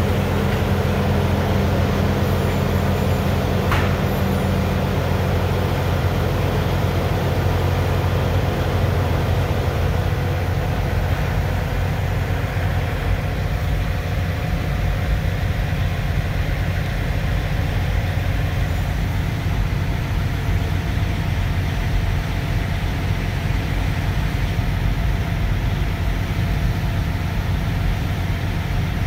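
Steady low engine rumble, heard from inside a semi truck's cab, with a brief click about four seconds in.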